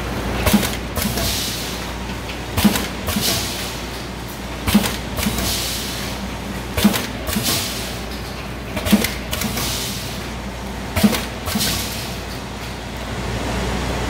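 Automatic granule pouch packing machine running in steady cycles, about one every two seconds: each cycle a sharp clack of its pneumatically driven sealing jaws followed by a hiss of air, over a steady low hum.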